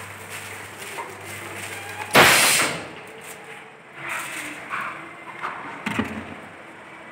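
Hot foil bucket printing machine venting compressed air in one loud, short hiss about two seconds in, as its low steady hum stops. A few knocks and clatters follow as the plastic bucket is handled on the mandrel.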